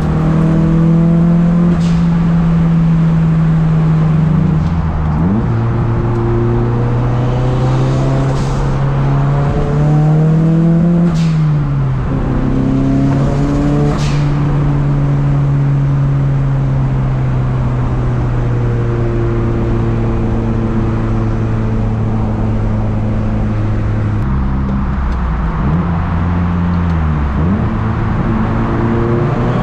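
Nissan S13 Silvia's turbocharged SR20DET four-cylinder engine heard from inside the car at motorway speed. The engine note holds steady for long stretches, then steps down and back up several times as the throttle and gears change.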